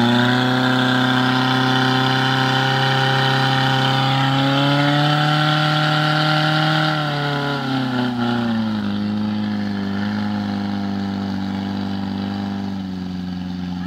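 Portable fire pump's engine running hard at high revs while driving water to the hose lines. Its pitch rises a little, then drops about seven to nine seconds in and settles at a lower steady speed.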